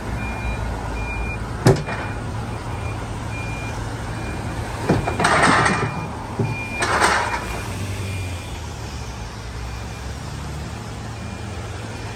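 Electric Toyota forklift climbing the tilted steel bed of a rollback tow truck, its warning beeper sounding in short beeps about twice a second over a steady low idle. A sharp clank comes about two seconds in, and two louder rasping bursts of noise around five and seven seconds in as it rolls onto the bed.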